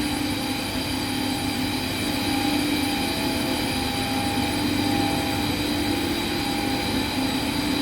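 Steady drone of running chiller plant-room machinery, with several steady hum tones over a low rumble.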